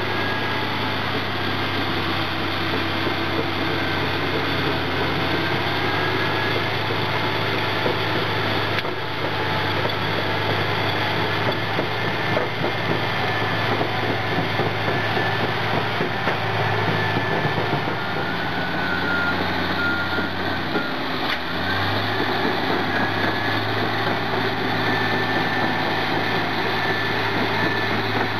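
Caterpillar D11N bulldozer with its C27 V12 diesel running steadily under load as it pushes dirt, a faint high whine over the engine note. The engine note dips briefly about two-thirds of the way through, then comes back.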